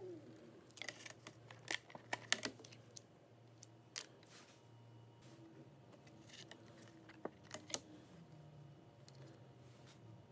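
A flexible 3D-printer build plate being handled and flexed, with a quick run of sharp clicks and crackles in the first few seconds as the printed plastic part pops loose, then a few scattered clicks. A low steady hum runs underneath.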